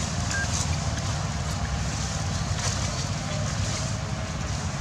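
Steady wind noise on the microphone: a low rumble with a hiss over it.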